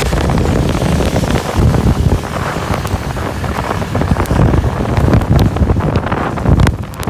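Heavy rain with strong wind buffeting the microphone in gusts: a dense, loud hiss scattered with sharp cracks and spatters.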